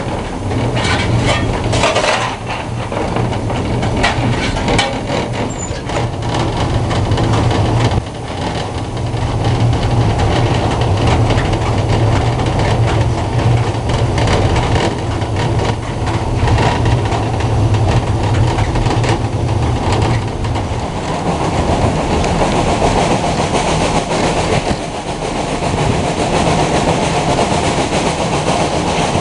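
Steam locomotive running along the line, heard from its cab: a steady low rumble of the engine and wheels with rail clatter. A few scrapes and knocks of coal being fired into the firebox come in the first couple of seconds. About two-thirds of the way through, the low rumble eases and a brighter rushing of passing air takes over, heard from outside the cab.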